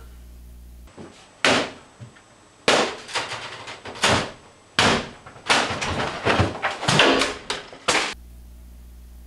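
A run of loud bangs and crashes, like things being slammed and knocked over, coming at irregular intervals for about six seconds from a second and a half in.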